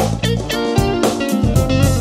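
Background music led by plucked guitar, its notes coming in a quick, even run.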